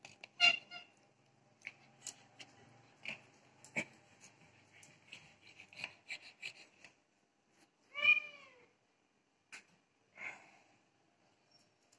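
Domestic cat meowing: a short meow about half a second in, a louder, longer meow about eight seconds in that rises and falls in pitch, and a brief call soon after. Soft clicks and rustles fall between the meows.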